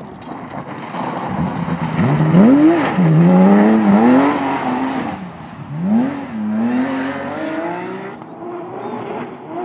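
Porsche 911 rally cars' flat-six engines accelerating hard, the pitch sweeping up and dropping back at each gear change. The engines are loudest from about two to five seconds in, and another car's engine climbs again about six seconds in.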